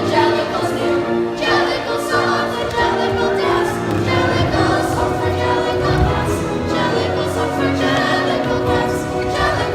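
Music with a choir of many voices singing sustained notes.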